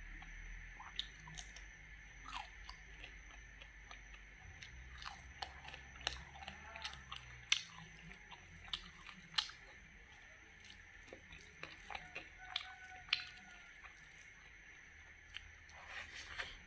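Close-up chewing of cooked wood larvae with rice: irregular sharp crunches and wet mouth sounds as the grubs are bitten and chewed.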